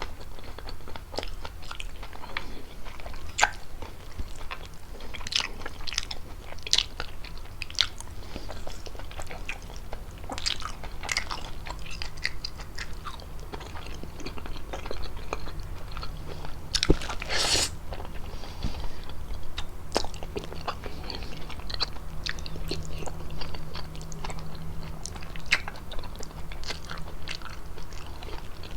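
A person chewing and biting fettuccine with chicken: irregular wet mouth clicks and smacks, with a longer, louder burst about seventeen seconds in.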